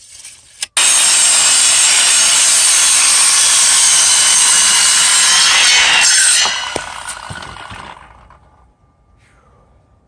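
Handheld circular saw cutting through a wooden post: it starts abruptly about a second in, runs steadily through the cut for about five seconds, then winds down and fades as the blade coasts to a stop.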